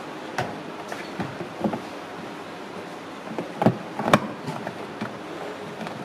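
Hard plastic knocking and clattering as parts are handled and fitted inside a washing machine's plastic tub: a scatter of irregular knocks, the two loudest close together a little past the middle.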